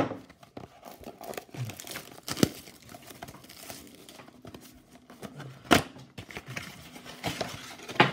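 Plastic wrapping crinkling and tearing as a cardboard trading-card blaster box is unwrapped and opened by hand, with several sharp snaps. The box's cardboard flap tears open near the end.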